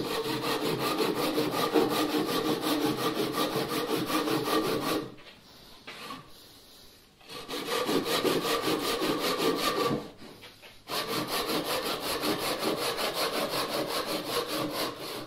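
Ryoba Japanese pull saw cross-cutting a pine 2x4 bench leg with quick, even strokes, in three runs broken by two short pauses. The pitch of the cut is changing, the sign that the saw is close to breaking through the board.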